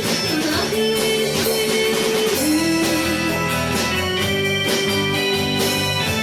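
Band music led by guitars: a sustained melody line of held notes, sliding down about two and a half seconds in, over strummed guitar and percussion.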